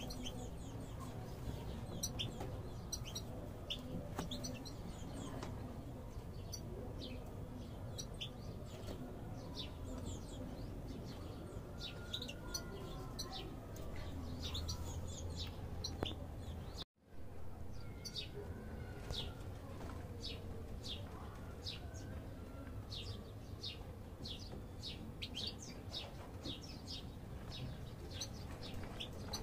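European goldfinches calling in an aviary: a steady stream of short, high chirps and twitters. The sound drops out abruptly for a moment a little past halfway, then the chirping carries on.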